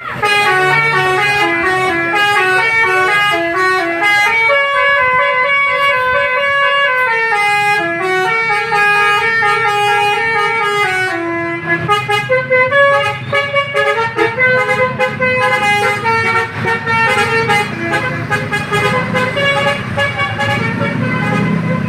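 Bus 'telolet' multi-tone air horn playing a fast melody, its notes stepping up and down several times a second.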